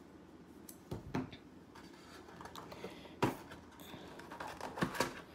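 Handling a boxed card game: a deck of cards and the cardboard box with its plastic tray being moved, giving a few light taps and knocks, the sharpest about three seconds in, with faint rustling between.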